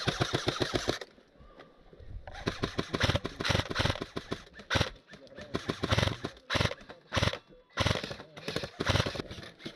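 Airsoft electric guns firing full-auto in several bursts, each a rapid run of about a dozen shots a second.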